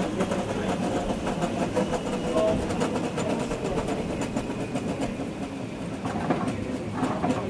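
Train running along the track, heard from the driver's cab: a steady running noise with wheel clicks over the rails scattered through it.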